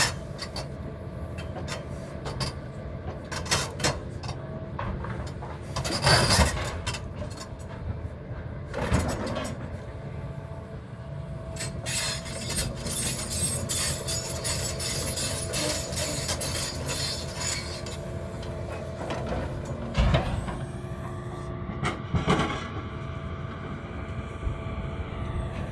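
Hitachi tracked excavator's diesel engine running steadily while its demolition grapple handles steel mast tubes, with several loud metallic clanks and a fast metallic clatter for several seconds in the middle as the machine moves.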